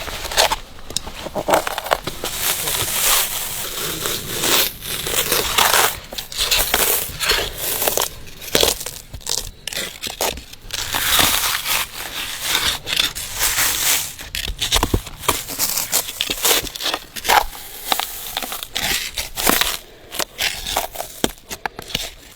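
Bark being peeled off a huangbai (Phellodendron, Chinese cork tree) trunk: a dense, irregular run of crackling, tearing and crunching as the strips come away from the wood.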